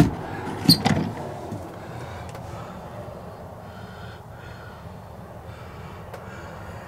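A sharp click, then under a second later a loud clunk with a brief high squeak, as an overhead wooden cab cabinet is unlatched and swings up on its gas strut. A steady low rumble runs underneath.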